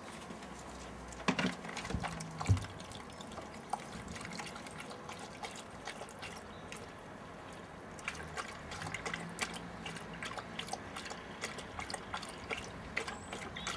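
Husky lapping water from a plastic dish: a run of wet laps and splashes, coming thickest in the second half. Two louder knocks about one and two and a half seconds in.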